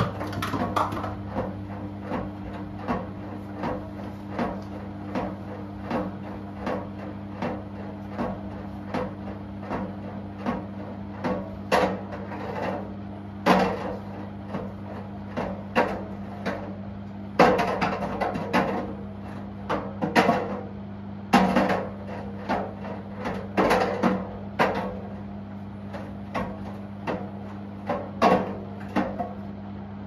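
Washing machine drum turning with a steady motor hum, while a phone tumbles inside and knocks against the drum about once every three-quarters of a second. Several knocks in the second half are louder clunks.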